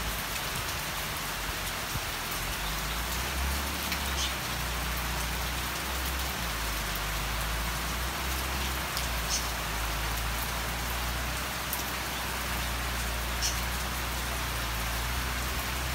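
Steady rain falling, an even hiss throughout, with a low steady engine hum underneath.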